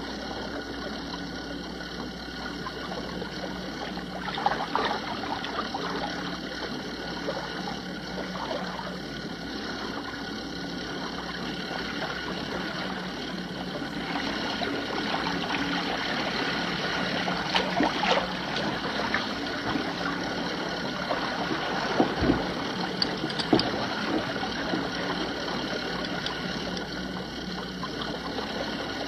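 Small boat's motor running steadily, with water splashing and a few brief louder splashes or knocks.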